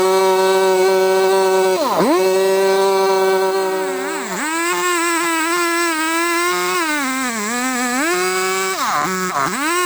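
Two-stroke chainsaw running at high revs. Its pitch drops sharply and climbs back several times, about two seconds in, near the middle, and twice near the end, as the chain loads up in the wood.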